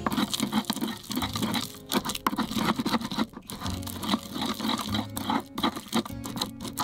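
Wooden pestle grinding basil and pine-nut paste round a wooden mortar: irregular scraping and wet crunching in a circular motion. Background music plays underneath.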